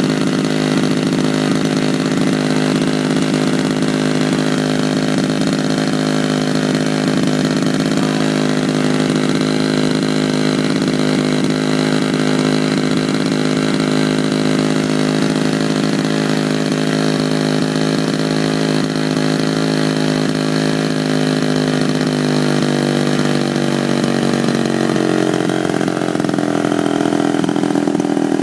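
Engine of a large-scale RC model biplane running steadily on the ground with its propeller turning. Its pitch settles lower over the last several seconds.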